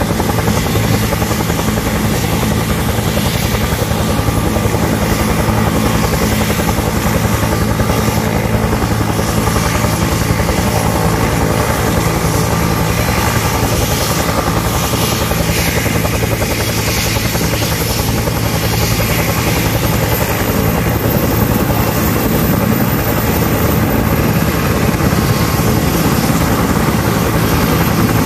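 UH-60 Black Hawk and UH-1 Huey military helicopters running on the ground before take-off, rotors turning with a steady rapid chop, with a high turbine whine that slowly rises in pitch.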